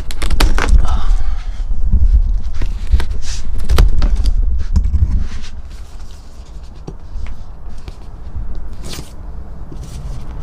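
A large cardboard shipping box being handled and opened by hand: cardboard scraping, with many short clicks and knocks over heavy handling rumble, quieter for the last few seconds.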